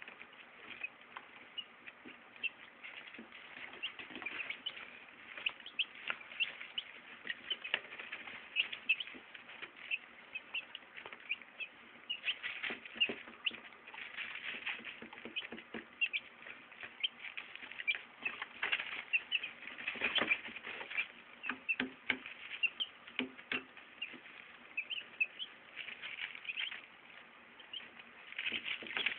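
Baby chicks peeping: many short high cheeps, scattered and overlapping, with brief scratching and rustling of their feet in wood shavings.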